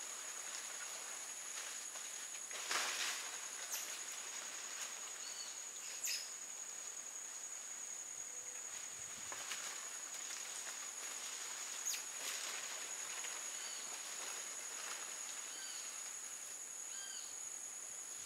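Forest ambience: a steady high-pitched insect drone, with scattered short high chirps and a few brief rustles.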